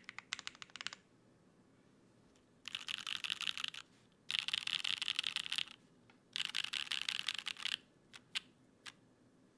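Mechanical keyboard with lubed Gateron Cream Soda linear switches on an aluminium plate, gasket-mounted, with GMK keycaps, being typed on: a short run of keystrokes, then three fast flurries of key presses, each a little over a second long, and a few single key presses near the end.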